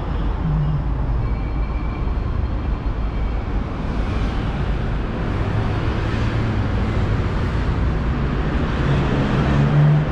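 Steady road traffic on a wide city avenue: car engines running and vehicles passing, with a deep rumble throughout and one vehicle louder near the end.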